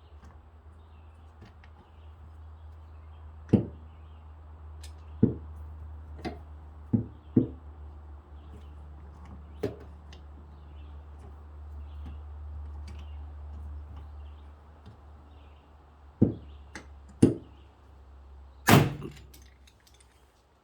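Glue-pull dent puller yanking on a glued tab: a series of about nine sharp knocks spread out with uneven gaps, the last one, near the end, the loudest, over a low steady hum.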